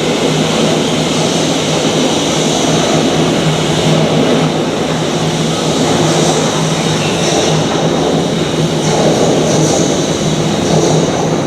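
Thameslink Class 700 Desiro City electric train running at the platform: a steady low hum under an even rushing noise.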